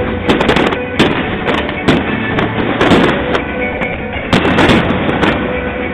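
Aerial fireworks bursting in quick succession: repeated sharp bangs and crackles that bunch up about three seconds in and again near the end, over music playing steadily throughout.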